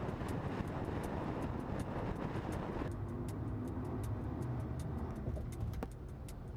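Car on the move: steady road and wind noise, which drops somewhat about three seconds in, with light ticks at a regular pace throughout.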